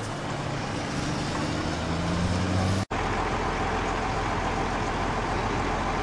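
Fire tanker truck's engine revving up, its pitch rising over about three seconds. Then, after an abrupt cut, a steady low rumble of idling vehicle engines.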